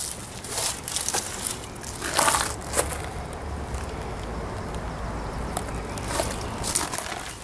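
Footsteps crunching over gritty, loose ground in irregular steps, pausing in the middle under a low steady rumble before the crunching picks up again near the end.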